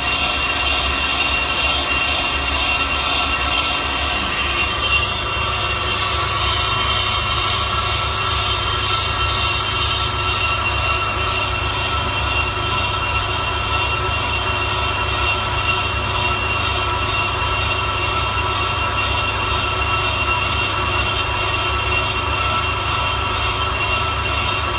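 Ammco bench brake lathe turning a Kia Rio brake disc: the motor and spinning arbor hum steadily under a continuous metallic whine of several held high tones as the disc is resurfaced. The highest hiss drops away about ten seconds in.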